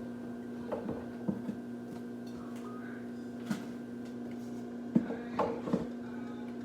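Scattered light knocks and clatter of kitchen things being handled, a few in quick succession near the start and again near the end, over a steady low hum.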